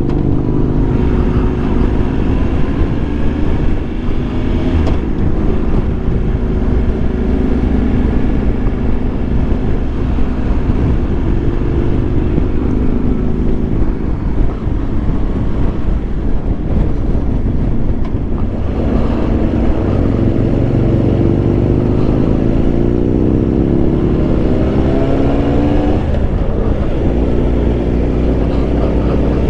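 Triumph Tiger Explorer 1200's three-cylinder engine running at road speed under heavy wind rush on the microphone. From about 19 seconds in it pulls up through the revs, drops at a gear change near 26 seconds, then climbs again.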